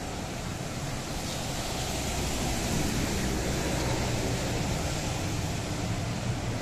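Rain hiss mixed with the rumble of city street traffic, getting a little louder after about two seconds.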